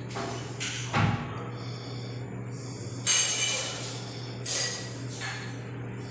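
A gloved hand handling a plastic jar of plastisol: a knock about a second in, then a few short rustling hisses, over a steady low hum.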